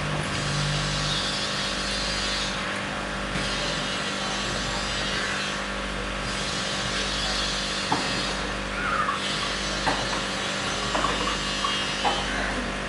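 Steady hum and hiss of running aquarium equipment, with a few faint clicks in the second half.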